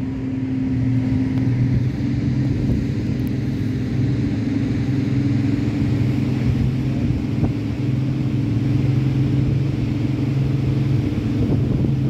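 Rigid inflatable boat's engine running steadily at an even pitch.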